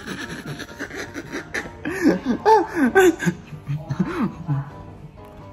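A man laughing in repeated bursts, loudest about two to three seconds in.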